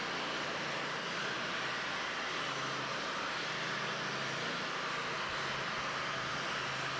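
Steady hiss over a low, even engine drone.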